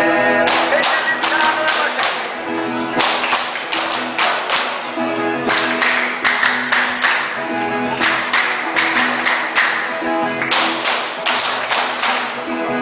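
Group of viola caipira players strumming an instrumental passage, with quick, sharp, rhythmic strokes across the strings.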